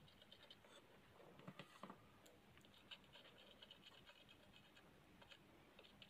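Near silence with faint scratching and small scattered ticks, a few slightly stronger about one and a half to two seconds in, as a soldering iron tip is worked over the charging-port solder pads on a phone's board to clean off old solder.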